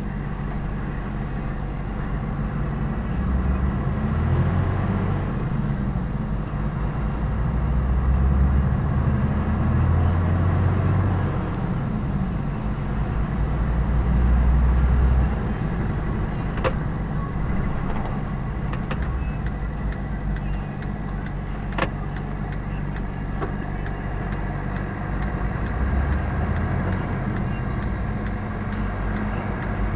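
Diesel engine of a 44-tonne semi-trailer truck running on the move, its low note swelling and easing several times with the throttle. A few sharp clicks sound in the second half.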